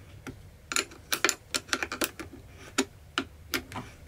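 Sharp metal clicks, a few a second and unevenly spaced, of a wrench loosening the nut on a battery's positive terminal clamp.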